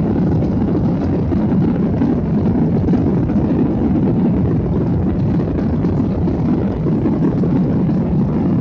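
Airliner engines running at steady takeoff power, heard from inside the passenger cabin as a loud, even, low rumble.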